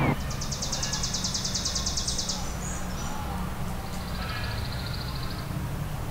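A bird trilling outdoors: a rapid, high trill lasting about two seconds, then a second, slightly lower and shorter trill about a second and a half later, over a steady low background rumble.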